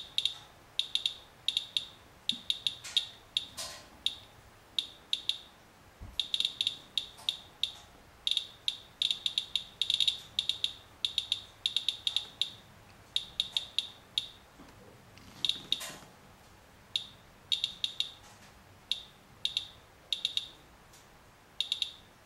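Radalert Inspector Geiger counter chirping once for each detected count: short, high beeps at an irregular, random rate, often bunched into quick runs. It is counting a rain-wipe sample at several times normal background radiation.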